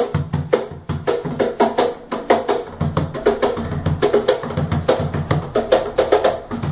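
Pithy Standard cajón, a slanted-front wooden box drum with snare wires inside, played by hand in a fast, steady groove. Crisp slaps with snare rattle alternate with deep bass strokes.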